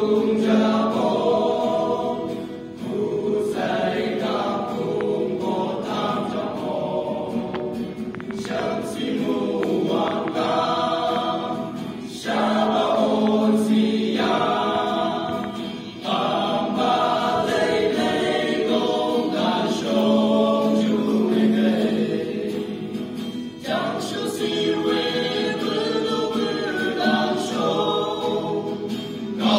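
A male vocal group singing together in harmony to an acoustic guitar, in phrases broken by short pauses.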